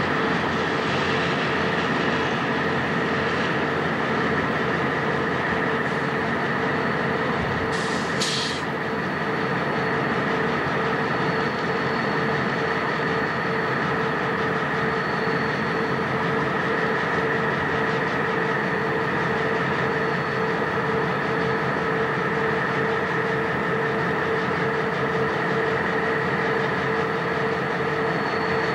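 Diesel-electric freight locomotives running at a steady drone with fixed tones. There are two short clicks about eight seconds in.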